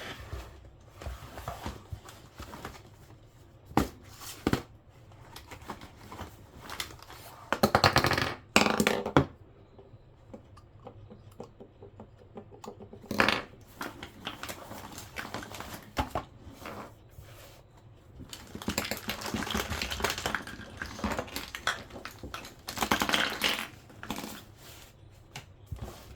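Small hard objects being handled and set down on a table: scattered clicks and knocks with a few louder clattering bursts and a longer stretch of rustling and clatter near the end.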